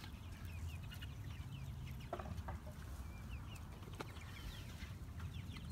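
A small flock of chickens peeping and clucking softly in short, high, falling chirps, with a few light clicks in between.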